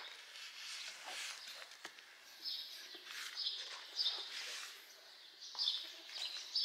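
Small birds chirping repeatedly in short high bursts from a couple of seconds in, over soft rustling.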